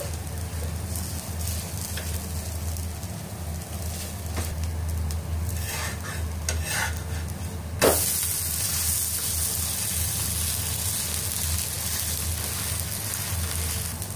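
Adai frying in oil on a hot tawa, with a few spatula scrapes and a sharp knock about eight seconds in as it is turned over. After that the sizzling becomes louder and hissier. A steady low hum runs underneath.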